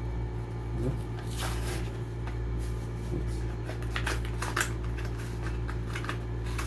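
Cardboard-and-plastic blister packaging of a die-cast toy car being handled and opened: scattered rustles and crinkles, strongest about a second and a half in and again around four seconds, over a steady low hum.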